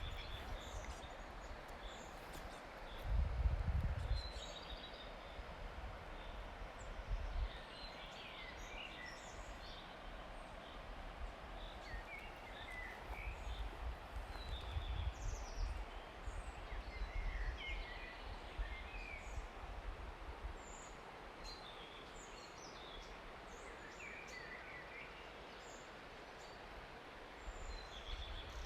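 Small songbirds chirping and trilling in a forest, short high calls scattered throughout over a faint steady hiss. A low rumble comes about three seconds in.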